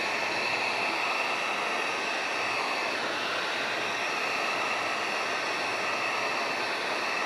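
Heat gun running steadily: a constant rush of blown air with a thin whine over it.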